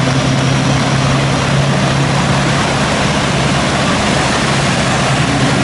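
Vehicle engine running with a steady low hum over a constant rushing noise; the hum weakens about two and a half seconds in.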